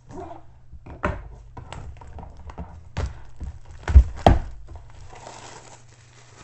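Clear plastic shrink wrap being picked at, torn and peeled off a long cardboard diamond-painting kit box: crinkling and crackling plastic, with two sharp knocks about four seconds in that are the loudest sounds.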